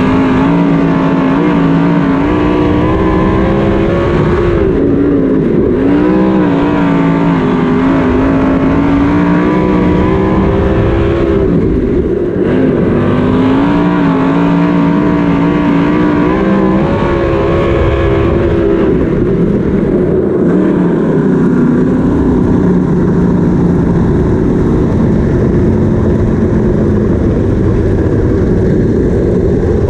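360 winged sprint car's V8 engine at racing speed, heard from the cockpit. Its note dips as the throttle lifts for the turns, about five, twelve and twenty seconds in, and climbs again down the straights. In the last third it runs lower and less clear.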